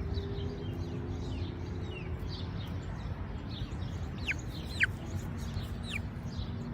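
Buff Orpington chicks cheeping in short, sharp, falling chirps over a steady low rumble: the happy call of a chick that has found something, here a worm, and is inviting the others to chase it.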